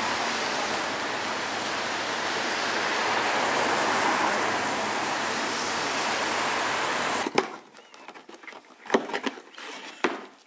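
Steady rushing noise of a busy street, which cuts off abruptly about seven seconds in. After that come a few sharp clicks and rustles of paper packaging being handled.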